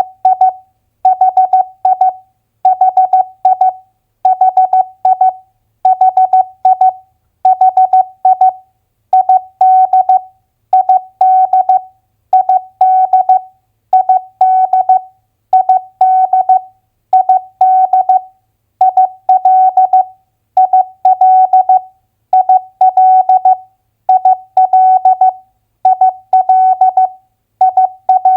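Morse code (CW) keyed as a steady single-pitched tone at 15 words per minute. It comes in short clusters of dots and dashes, each a two-letter US state abbreviation, with a short silence between clusters about every second and a half.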